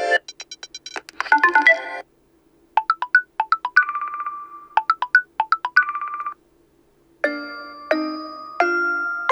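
Built-in ringtones of a OnePlus Nord N10 5G phone played one after another, with short silent gaps between them. One short electronic melody ends about two seconds in. A second one of quick repeated pitched notes runs from about three to six seconds. A chime-like tune begins near the end.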